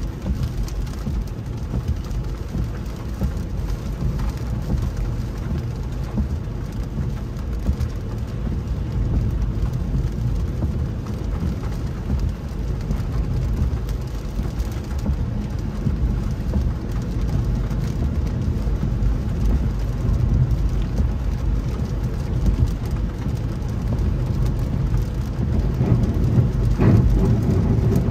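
Rain hitting a moving car, heard from inside the cabin, over a steady low rumble of tyres on the wet road and wind. A louder rush comes near the end.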